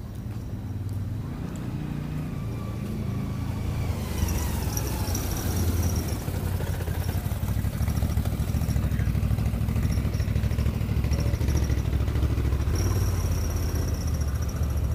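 Engines of vehicles driving slowly past, a side-by-side utility vehicle among them, a low rumble that grows louder about four seconds in and stays steady. A faint high whine comes and goes over it.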